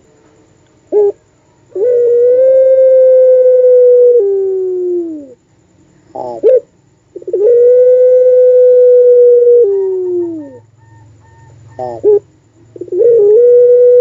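Puter pelung dove calling: three long drawn-out coos, each opening with a short note and then holding a steady tone. The first two drop in pitch at the end.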